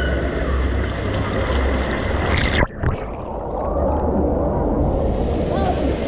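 Rushing, splashing water of a water park's wild-river rapids ride, with a steady deep rumble. About two and a half seconds in, the sound cuts out for an instant and comes back duller.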